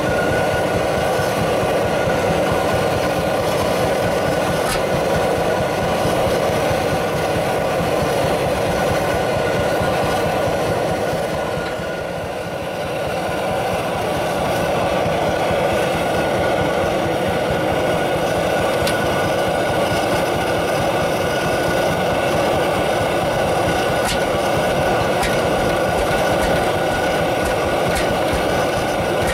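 Single-cylinder hot-bulb tractor engine running steadily with a fast, even exhaust beat. It is briefly quieter about twelve seconds in.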